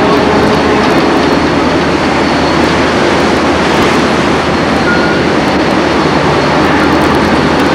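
Loud, steady machinery noise on a ship's working deck during replenishment at sea, from the running RAS winch gear, with a faint high steady whine over it.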